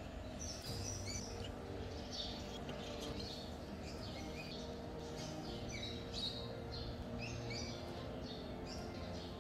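Small birds chirping in quick, repeated short calls, over a faint steady low background.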